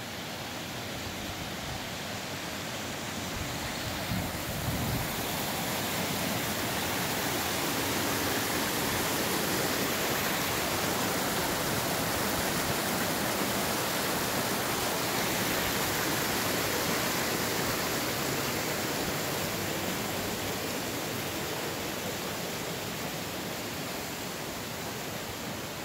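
Mountain creek rushing over rocks and small cascades: a steady, even rush of water that swells a little through the middle.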